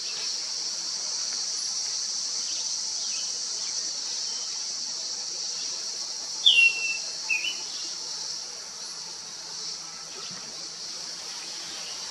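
Greenish schiffornis giving one short whistled phrase about halfway through: a clear note that drops and then holds, followed by a shorter rising note. Behind it runs a steady high insect buzz.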